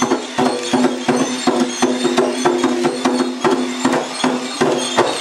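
Music with a steady percussive beat, about three strokes a second over held notes, stopping near the end.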